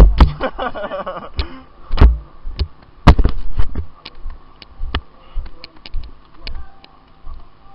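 Irregular sharp pops and knocks of airsoft play, shots and BB hits, with louder ones about two and three seconds in.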